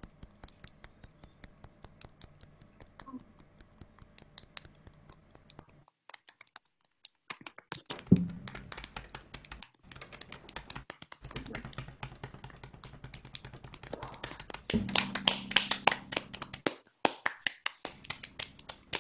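Hand-made rain sound over a video call: fingernails clicking together and hands tapping and patting, a dense patter of quick clicks. It grows louder about three-quarters of the way through.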